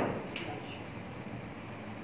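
Snooker balls clicking together after a shot: a sharp click with a short ring at the start, then a lighter click about a third of a second later.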